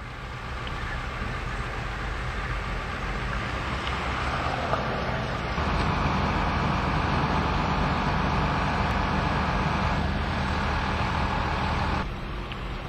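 Vehicle engines running steadily with road and traffic noise, a low even rumble under a general hiss. It grows louder about halfway through and drops suddenly near the end.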